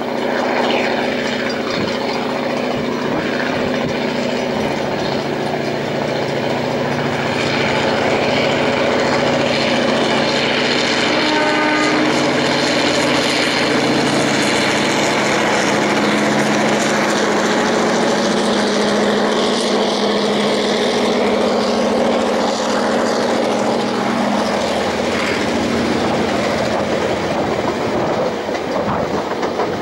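DA-class diesel-electric locomotive DA 1431 hauling a train up a grade, its EMD two-stroke diesel running steadily under load. Passenger carriages roll past with their wheels clicking over the rail joints.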